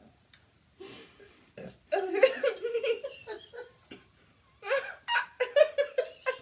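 A long, strained vocal sound about two seconds in, then a quick run of laughter near the end. Both come from people reacting to eating very hot spicy noodles.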